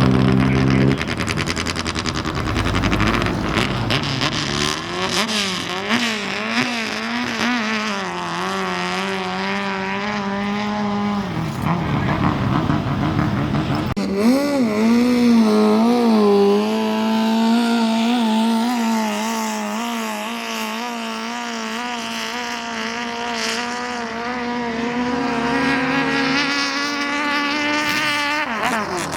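Racing speedboat engines running hard. The pitch wavers up and down and then holds steady, with a sudden change about halfway through.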